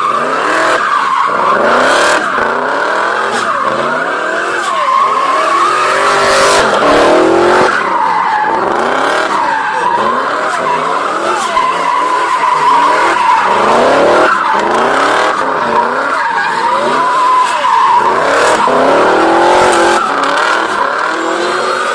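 BMW E30 engine revving hard again and again, the revs climbing and dropping about once a second, under a continuous tire squeal, as when the car is drifting.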